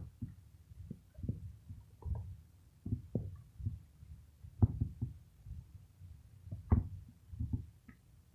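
Hands squeezing and kneading a lump of slime on a table close to the microphone: irregular soft squelches and low thumps, one or two a second.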